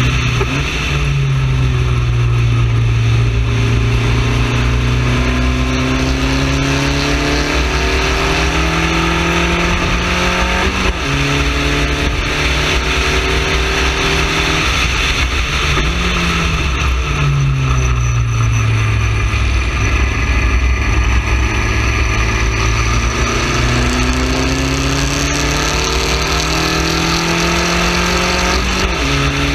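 Spec Racer Ford's four-cylinder engine at racing speed, heard onboard. The revs climb repeatedly and drop sharply at several upshifts, with a longer fall in revs about halfway through. Wind and road noise run steadily underneath.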